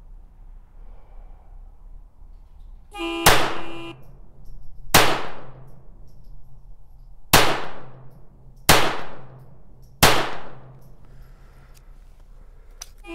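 Five shots from a CZ Kadet .22 LR pistol in a rapid-fire string. A steady beep sounds about three seconds in, and the first shot comes almost with it. The rest follow about one and a half to two and a half seconds apart, each with a short ringing echo.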